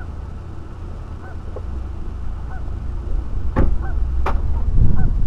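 Geese honking now and then, short single honks about a second apart, over a steady low rumble. Two sharp knocks come about three and a half and four seconds in, and the sound grows louder near the end.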